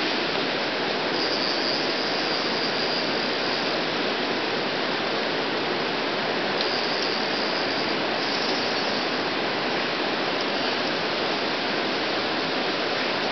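River water rushing, a steady even rush with no breaks.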